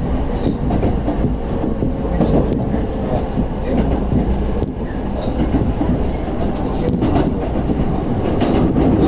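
Keikyu N1000 series electric train running at speed, heard from inside the passenger car: a steady rumble of wheels and running gear with occasional sharp clicks. A faint high whine comes in for a few seconds in the middle.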